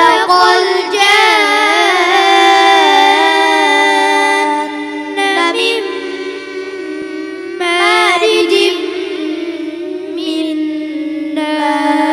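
Boys' Quran recitation in melodic tilawat style, high young voices chanting Arabic verse in long held, ornamented notes, in several phrases.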